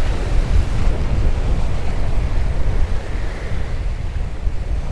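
Strong wind buffeting the microphone with a steady low rumble, over waves breaking and washing against the jetty's granite rocks.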